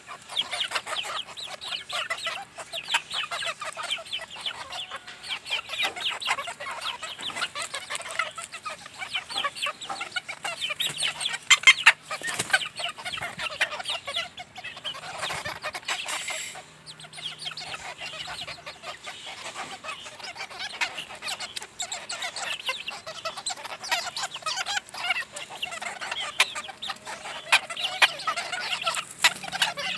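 A flock of hens clucking steadily as they crowd around and peck at a T-bone steak, with a dense run of quick pecking taps and a few louder spikes about twelve seconds in.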